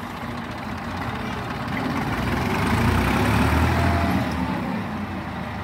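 Ursus tractor's diesel engine running, revving up about two seconds in, heaviest a little past the middle, then easing back, as the tractor pulls its hitched trailer in soft, churned ground.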